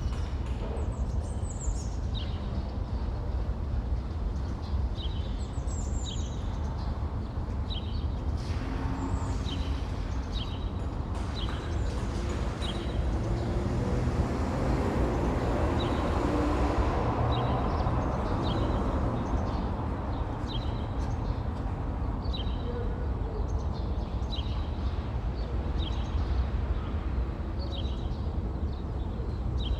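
City street ambience: a steady low rumble of distant traffic with small birds chirping over it in short repeated calls. A vehicle passes, swelling and fading away over about five seconds near the middle.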